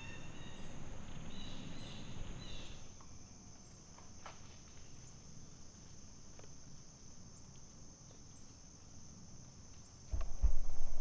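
Steady high-pitched drone of insects in the woods, with a few short high chirps in the first two or three seconds. Loud low thumps and rustling start about a second before the end.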